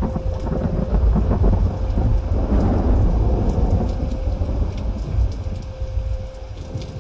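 Rolling thunder: a loud low rumble that swells to a peak about two to three seconds in, then slowly fades.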